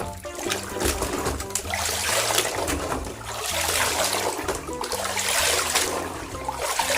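Water splashing and trickling as a plastic toy crane truck is washed and turned in a basin of water, over background music.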